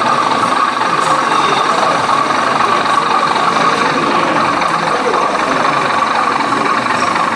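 Steady diesel engine idling sound from a model locomotive's sound system, with the murmur of people talking in the hall underneath.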